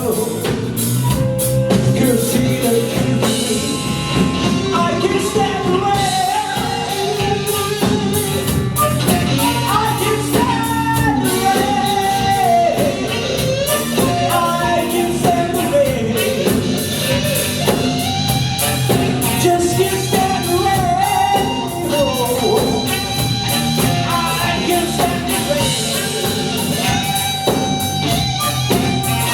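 Live band playing a blues-rock song: guitar and drum kit, with singing over it.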